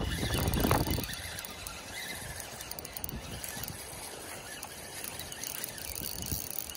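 Wind buffeting the microphone for about the first second, then a quieter steady outdoor hiss while a spinning reel is worked against a small hooked bass.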